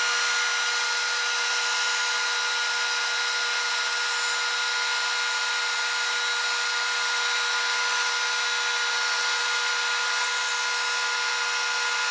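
Band saw running steadily, with a constant hum under the noise of the blade cutting through a thick block of nylon in one even pass; the nylon cuts easily.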